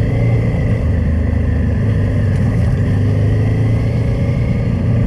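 Honda Transalp motorcycle engine running at a steady pace while being ridden, its note holding even.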